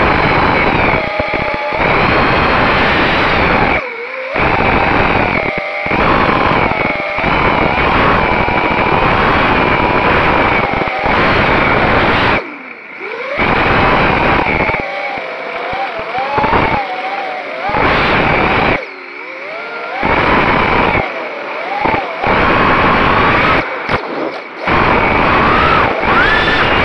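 Brushless motors and propellers of an FPV quadcopter heard through its onboard camera, over a rush of wind: the whine wavers up and down in pitch with the throttle and drops away abruptly several times where the throttle is cut.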